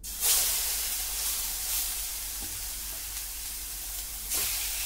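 Marinated chicken breast pieces sizzling as they go into a thin layer of hot oil in a frying pan. The sizzle starts suddenly as the first piece goes in, holds steady, and surges again near the end as another piece is added.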